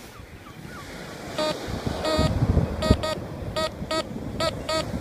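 Teknetics T2 metal detector beeping: about nine short beeps at one pitch, mostly in pairs, as the coil is swept over a buried target that gives a good signal.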